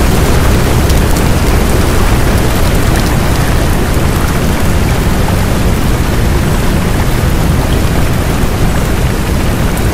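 Recorded heavy rain, a steady loud hiss with a deep rumble underneath and faint scattered drop ticks, serving as the audible cover layer of a subliminal affirmation track.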